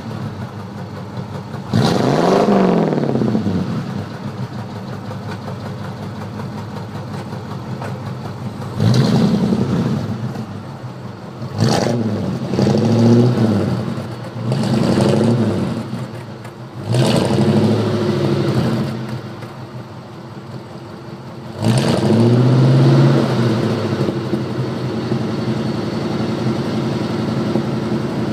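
Dodge 360 V8 of a 1971 Dodge Charger idling and blipped through about half a dozen revs, heard close to the exhaust tailpipes. Each blip rises in pitch and falls back to a steady idle, with a longer stretch of idle just before the last rev, about three-quarters of the way in.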